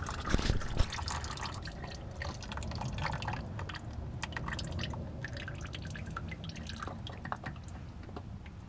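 Haldex fluid dripping from the all-wheel-drive coupling housing, its pump just pulled out: irregular small drips and ticks, with a brief knock just under a second in.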